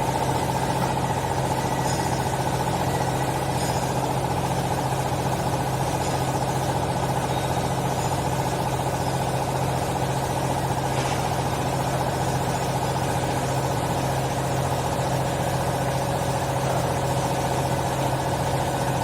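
Hydraulic clothes baler's power unit, electric motor and pump running steadily, a strong even hum with a buzzing whine over it.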